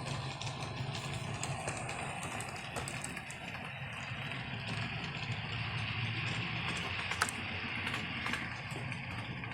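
HO scale model train running on the layout: a steady motor hum with light clicking of the wheels on the track, and one sharper click about seven seconds in.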